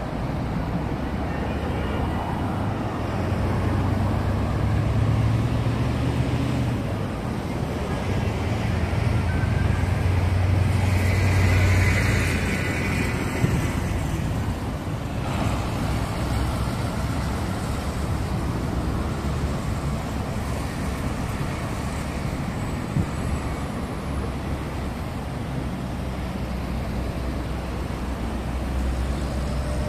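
Road traffic in a jam on a multi-lane highway: a steady rumble of idling and slowly moving vehicle engines and tyres. A deeper engine drone swells twice in the first half, and there is a single short knock near the middle.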